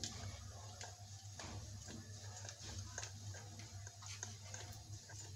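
Wooden rolling pin rolling a slice of bread flat on a wooden chopping board: faint, irregular light clicks and knocks over a steady low hum.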